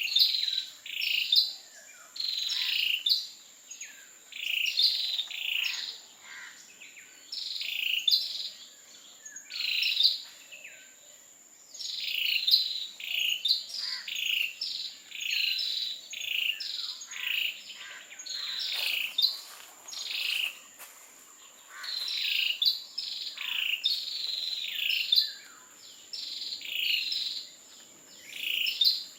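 Ashy tailorbird calling: short phrases of a few quick notes, repeated about every two seconds, an unusual call for this species that differs from its familiar calls. A steady high insect whine runs behind.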